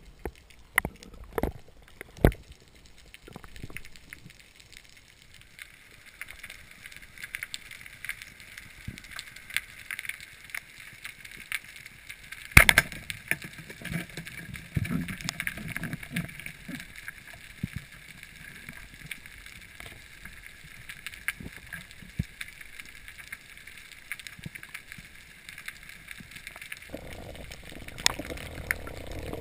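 Underwater sound through a waterproof camera housing while spearfishing: scattered clicks and knocks over a faint steady hiss, with one sharp knock about halfway through. Near the end a broader rushing of water comes in.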